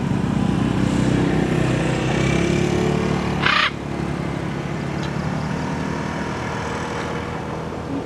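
A motor vehicle's engine runs close by, loud for the first three and a half seconds, then drops to a quieter steady hum. A short harsh screech comes about three and a half seconds in.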